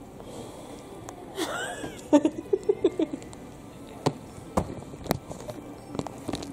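A woman laughing: a quick run of short 'ha' pulses about two seconds in. A few sharp clicks follow near the end.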